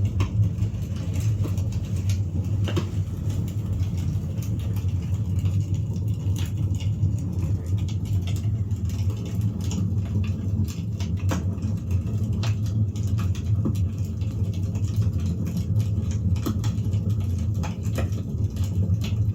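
Bonfire burning with a steady low roar and irregular crackles and pops from the burning wood.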